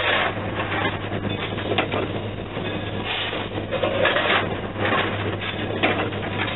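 Cab noise of Louisville & Nashville No. 152, a coal-fired steam locomotive, while the fireman shovels coal into the open firebox: a steady hum and hiss broken by irregular rushes of noise and a sharp knock about two seconds in.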